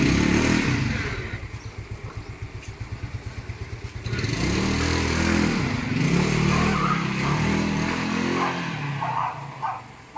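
Yamaha Mio Sporty scooter's single-cylinder four-stroke engine idling with an even pulsing beat, blipped once at the start. It then pulls away about four seconds in with rising, wavering revs that fade as it rides off on a test run after a CVT flyball and center spring change.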